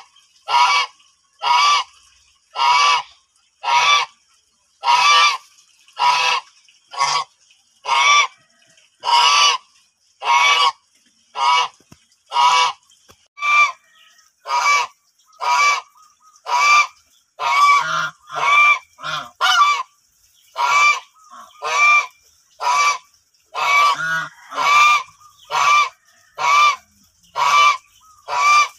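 White domestic geese honking very loudly over and over, about one honk a second, each a short ringing call, with a few lower, rougher honks among them in the middle.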